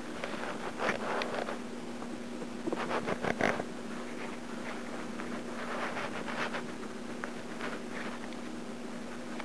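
A kitten scrabbling and moving about: short bursts of scratching and rustling, four or so, over a steady low hum.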